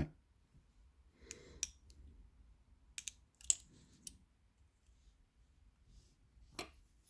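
Faint, irregular small clicks and taps of metal lock parts and tools being handled while a challenge lock is taken apart, with a sharper click about three and a half seconds in.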